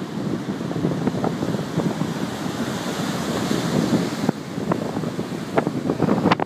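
Sea surf breaking and washing up a sandy beach, mixed with wind buffeting the microphone, with a few short knocks near the end.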